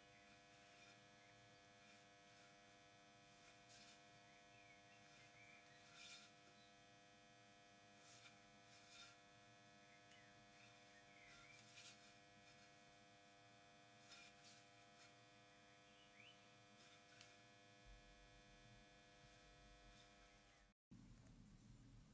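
Near silence: a faint steady electrical hum with a few faint scattered ticks.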